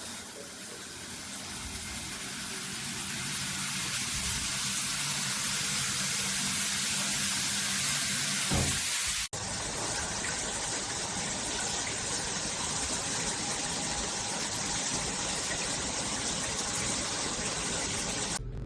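Shower running, a steady hiss of water spraying, growing over the first few seconds, with a brief dropout about nine seconds in.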